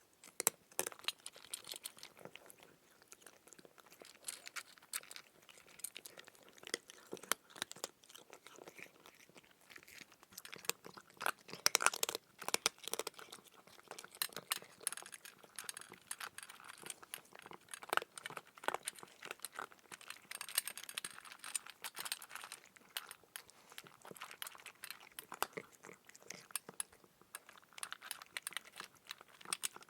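A cat eating, chewing and crunching its food in a dense, irregular run of small crunches and clicks, with louder bouts about twelve seconds in and again near twenty seconds.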